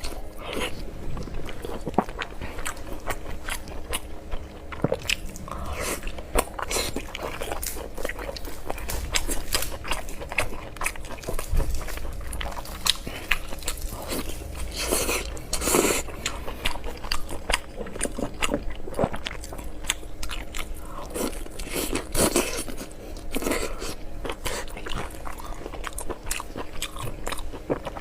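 A person chewing and biting mouthfuls of pork belly and rice, with many irregular crunching clicks and wet mouth sounds.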